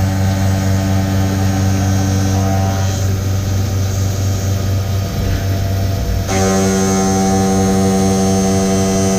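Haas VF-3 CNC vertical mill running a facing cut with a 2-inch face mill: a steady, loud machine drone with several held tones. The tones change and grow stronger about six seconds in.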